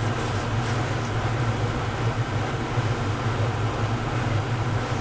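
Steady hum of room ventilation running: a constant low drone under an even airy hiss.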